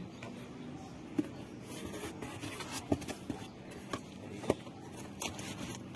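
Cardboard box being handled and its flaps pulled open: soft scraping with a handful of short, light knocks and clicks, over a low steady hiss.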